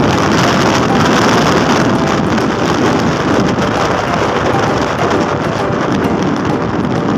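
Steady wind rush on the microphone with road and engine noise from a motorbike ride.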